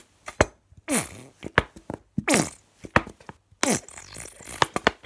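Plastic squeeze bottle of white school glue squeezed upside down, spluttering and squelching as air and glue spurt out, with sharp clicks from the plastic; a few of the squelches slide down in pitch. The bottle is running low, giving only just enough glue.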